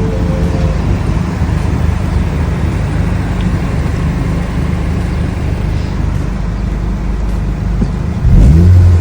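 A Honda Civic Si driving, with a steady four-cylinder engine drone and road noise. Near the end the engine revs up and grows louder as the car accelerates.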